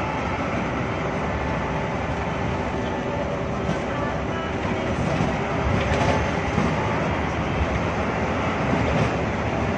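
Hino AK8 bus's turbo-diesel engine running under way, heard from inside the cabin, mixed with rain on the windscreen and tyre noise on the wet road. It grows a little louder in the second half.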